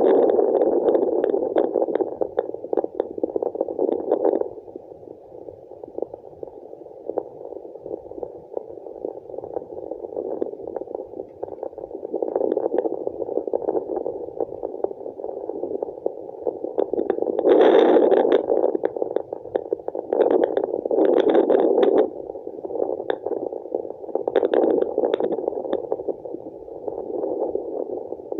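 Fetal Doppler monitor picking up placental blood flow through its small speaker: a continuous muffled whooshing that swells louder and fades back several times.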